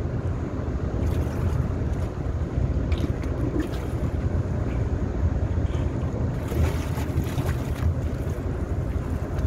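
Steady low rumble of a boat engine, with wind buffeting the microphone and water lapping.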